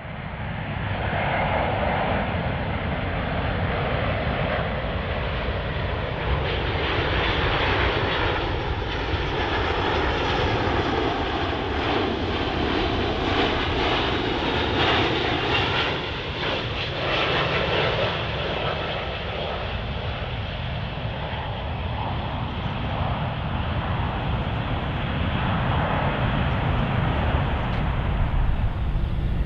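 Four turbofan engines of a Boeing C-17 Globemaster III military transport on final approach, with gear down, passing overhead and descending to land. The steady jet-engine noise swells in the first couple of seconds and then holds.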